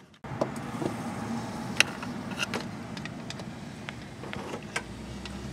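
Scattered light metallic clicks and taps of a magnetic pickup tool working in an engine's glow plug bore as the loosened glow plug is fished out, over a faint steady background hum.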